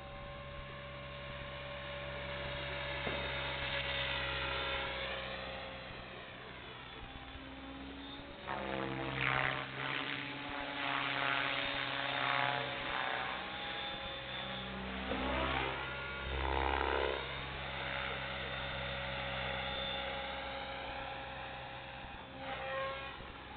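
Thunder Tiger Raptor E700 electric RC helicopter flying aerobatic figures: motor whine and rotor noise that keep gliding up and down in pitch, growing louder with strong sweeps from about eight seconds in to about seventeen.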